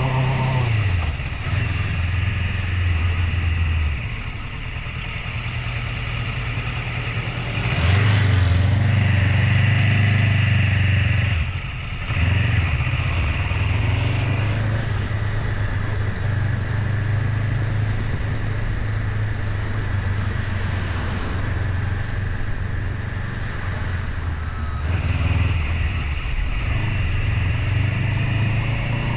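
Motorcycle engine running while riding, its note shifting with the throttle and gears, louder for a few seconds about eight seconds in. A steady rushing noise runs under it.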